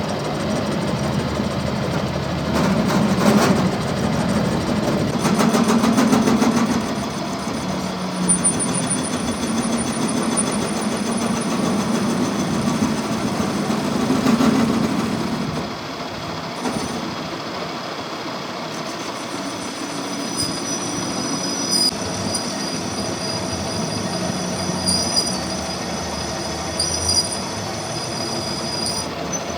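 Metalworking machinery running steadily, with a hum that swells and eases several times. Thin high-pitched metallic tones come in during the last third.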